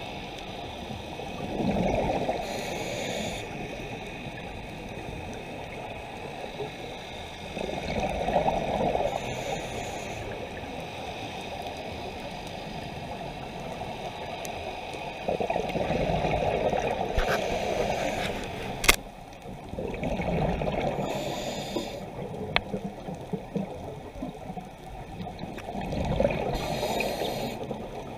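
Scuba regulator breathing heard underwater: five bubbling exhalations, each lasting about two seconds and coming every five to seven seconds, over a steady low hiss. One sharp click comes a little past the middle.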